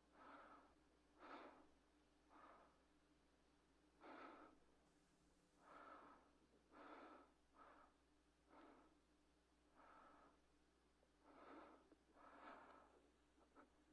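Faint, ragged breathing of a dying old man: about a dozen short, uneven breaths and gasps.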